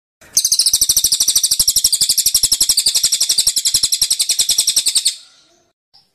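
A songbird singing one rapid, high trill of evenly repeated notes, about twelve a second. It starts just after the beginning, lasts about five seconds and stops abruptly.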